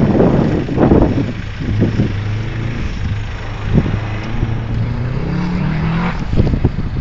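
A rally car's engine is heard holding a steady note, then rising in pitch as it revs up about two-thirds of the way through. Gusts of wind buffet the microphone at the start.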